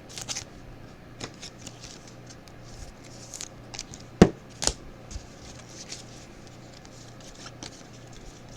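Trading cards being handled by hand: light rustling and sliding of card stock and pack wrappers, with two sharper taps a little after four seconds.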